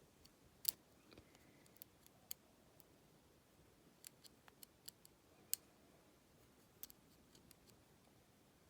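Faint, scattered metallic clicks from a lock pick working the pins of a challenge padlock under tension, about eight sharp ticks at uneven intervals, the loudest about five and a half seconds in.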